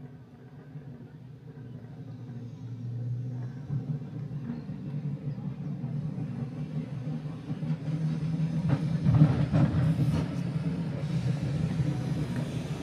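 Tram rumbling along its track, growing steadily louder over the first several seconds as it gathers pace or draws near, with a burst of clacks and rattles a little past the middle.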